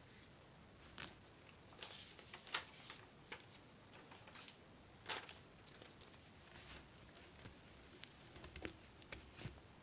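Faint, irregular rustles and light clicks of a person handling things and shifting about close by, the sharpest click about two and a half seconds in.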